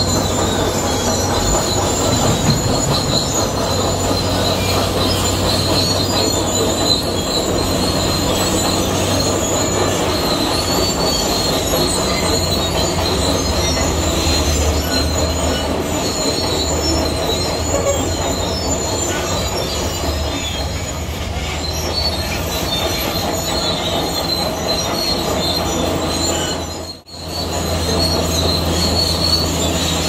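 Zoomlion crawler bulldozer working gravel: its steel tracks give a steady high squeal over the low drone of the diesel engine. The sound drops out for a moment near the end, then carries on.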